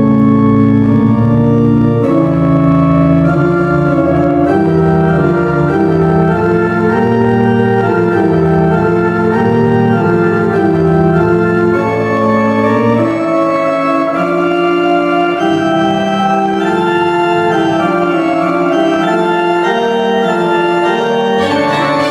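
Background music led by an organ-like keyboard playing held chords and a moving melody; the low bass notes drop out about thirteen seconds in.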